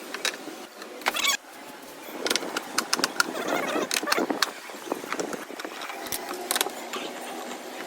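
Irregular clicks, knocks and clatter of hand tools and metal and plastic parts being handled while a washing machine is taken apart for servicing.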